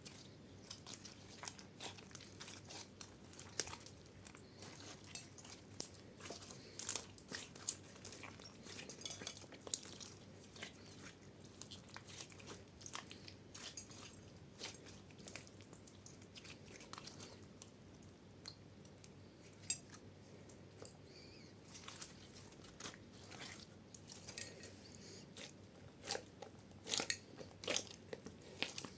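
Slime being worked, giving irregular crackling pops and clicks, with a cluster of louder pops near the end.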